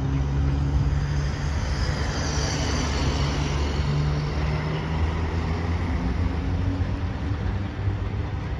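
Steady low drone of running vehicle engines with street traffic noise.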